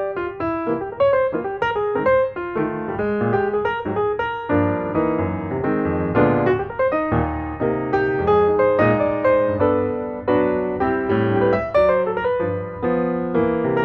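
Background piano music: a quick, busy run of notes and chords at a steady level.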